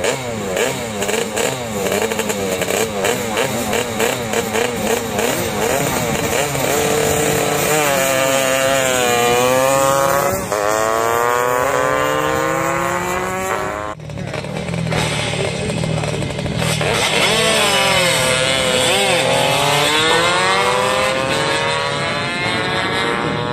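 Rotax 335cc-engined Lambretta racing scooter and a sports motorcycle revving on the start line, the engines pulsing with quick throttle blips, then launching and accelerating hard. The engine pitch rises and drops back at each gear change. After an abrupt break about halfway through, another full-throttle run rises through the gears again.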